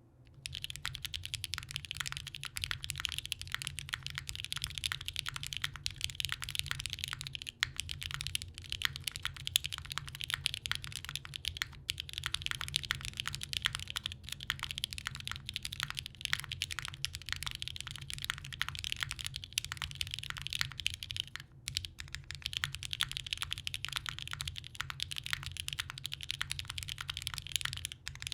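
Continuous typing on a TGR Singa Unikorn mechanical keyboard with lubed Gateron X linear switches, a half aluminium plate and GMK doubleshot ABS keycaps: a dense stream of keystrokes with brief pauses about 7, 12 and 21 seconds in.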